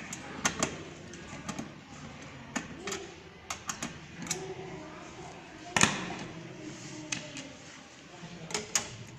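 Irregular sharp clicks and knocks of plastic and sheet metal as a DVD drive is worked loose from a desktop PC's drive bay. The loudest knock comes about six seconds in.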